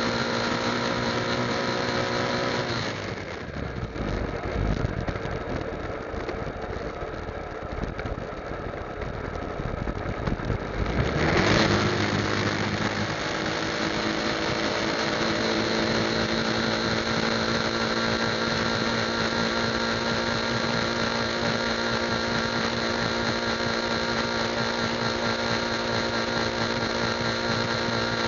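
Motorcycle engine running steadily at highway speed. A few seconds in its note drops away under a low rumble; about eleven seconds in it comes back with a brief louder surge and climbs in pitch, then runs steadily again.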